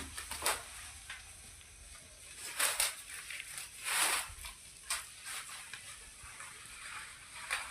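Irregular rustling and crunching noises: a few short scuffs and one longer rasp about four seconds in.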